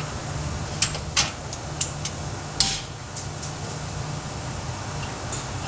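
Steady low mechanical hum with several sharp clicks and knocks, four of them clear in the first three seconds.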